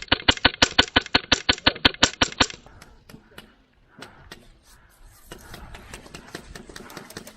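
Airsoft rifle firing a rapid string of shots, about nine a second, for roughly two and a half seconds. Fainter, scattered shots follow.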